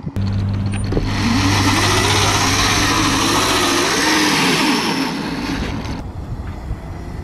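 A motor running and revving up and down over a steady low hum and a rushing noise. It starts abruptly and dies away after about six seconds.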